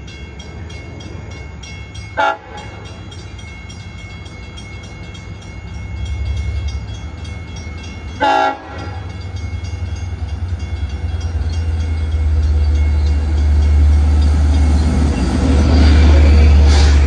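Long Island Rail Road diesel locomotive approaching on a train with two locomotives. It gives two short horn blasts, about two seconds in and about eight seconds in, then its engine rumble grows steadily louder as it draws near.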